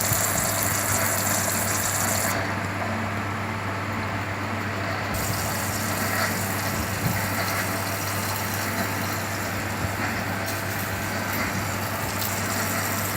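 Cutting machine running with a steady hum under a constant hiss.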